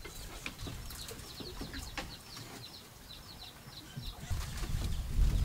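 Birds chirping: quick, short, high peeps that fall in pitch, several a second. A louder low rumble comes in near the end.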